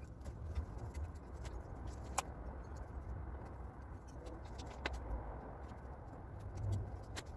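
Metal hand trowel digging into loose garden soil as seedlings are planted, with a few sharp clicks, over a steady low rumble.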